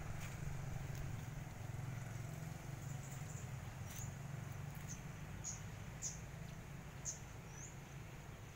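A steady low engine hum that fades slowly, with a handful of short, high chirps of small birds in the second half.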